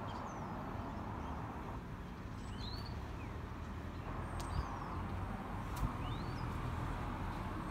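Small birds chirping in short high calls over a steady background hum of distant traffic, with two brief knocks about halfway through.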